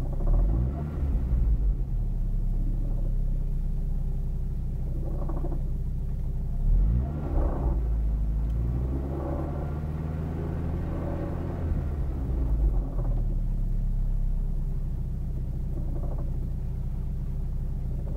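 Saab 9-3 engine running steadily, with an extra noise from the engine bay that comes and goes, sweeping up and down in pitch several times. The cause was a worn clutch bearing on the air-conditioning compressor.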